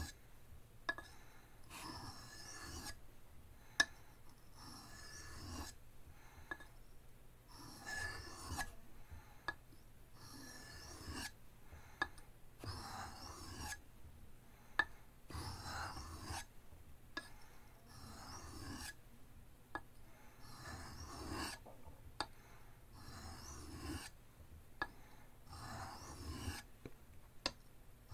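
Knife blade being stroked across an oiled soft Arkansas sharpening stone: a steady series of scraping strokes, roughly one every two seconds, with small sharp clicks between strokes as the blade meets the stone.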